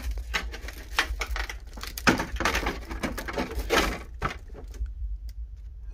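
Clear plastic wrapping crinkling and crackling as a hand handles the wrapped RC truck body, in an irregular run of crackles that is loudest about two seconds in and again near four seconds.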